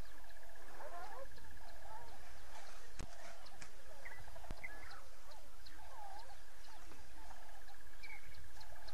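Waterhole ambience: several birds calling with short, curving warbled notes and high chirps, over a steady, evenly pulsing trill that fades for a few seconds in the middle.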